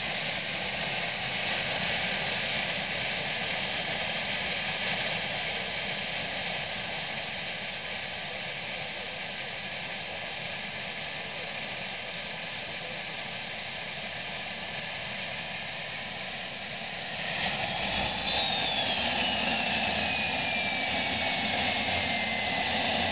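Fox-type ultralight helicopter's engine running on the ground with a steady high-pitched whine. About seventeen seconds in, the whine slides down in pitch as the main rotor begins to turn.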